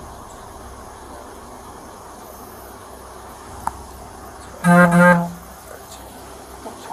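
Vehicle horn honking in two quick toots at one steady pitch, together lasting under a second, about two-thirds of the way in, over steady low background noise.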